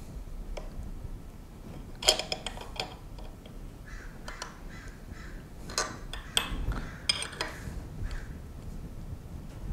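Steel clamping hardware on a milling machine table clinking and knocking as a casting is clamped down: the clamp nut, fixture plate and 1-2-3 blocks being handled and tightened. A few sharp metallic clinks, the loudest about two seconds in and a cluster more between about six and seven and a half seconds.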